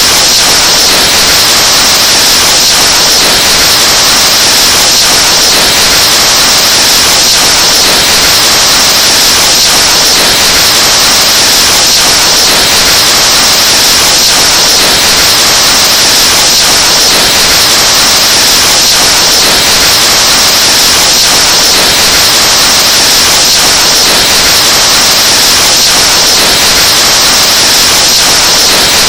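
The BK4 meme sound effect: blowing straight into a microphone, overdriven into a loud, steady, harsh hiss, looped without a break.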